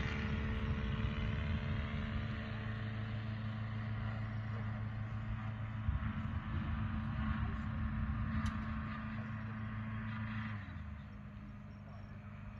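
Saito FG-57T four-stroke twin gasoline engine of a radio-controlled scale model motor glider, running steadily in flight. Its sound becomes quieter and a little lower about ten and a half seconds in.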